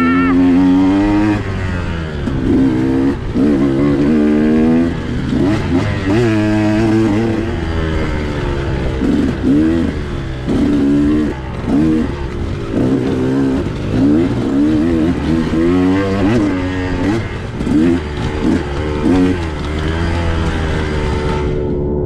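2021 KTM 125XC single-cylinder two-stroke dirt bike engine under hard trail riding, the throttle opening and closing so the pitch rises and falls every second or so. Near the end the engine holds a steadier note.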